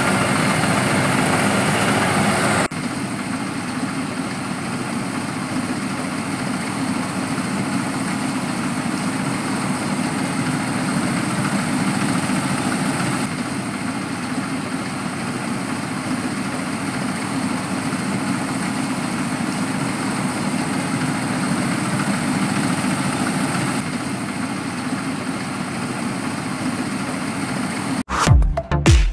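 Rice harvesting machine's engine running steadily, across several spliced clips that change abruptly. Electronic music starts about a second before the end.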